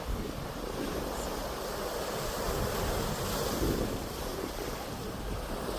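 Sea waves washing in, with wind buffeting the microphone; the wash swells a little louder about halfway through.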